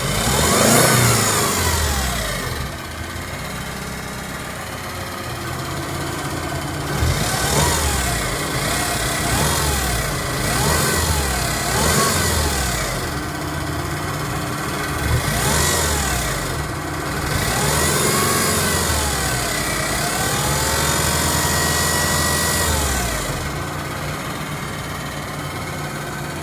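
Car engine running with the power-steering pump howling: a whine that rises and falls in pitch many times over the engine's hum. The owner suspects that a knock in the car comes from the power steering as well.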